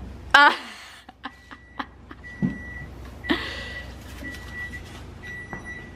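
Light clicks and knocks as a small object is handled at the leg of a wooden side table, after a short vocal sound. A faint high whistling tone comes and goes in half-second stretches throughout.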